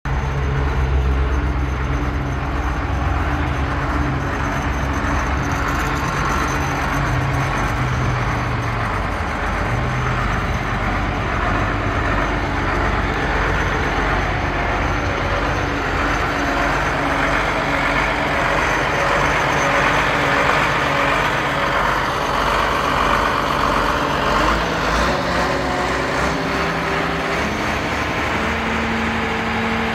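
1985 Liebherr 932 crawler excavator's diesel engine running steadily, a loud low engine sound whose tone shifts from moment to moment.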